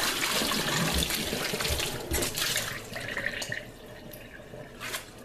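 Kitchen tap running into a stainless steel sink, the water splashing as a beef roast is rinsed under it. The flow drops off about three seconds in, leaving quieter drips and a short splash near the end.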